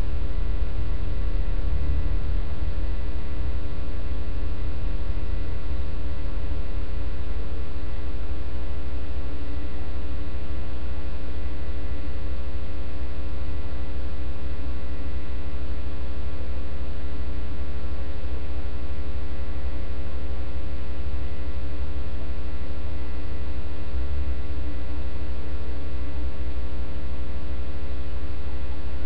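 Loud, steady electrical mains hum with a stack of even overtones, unchanging throughout.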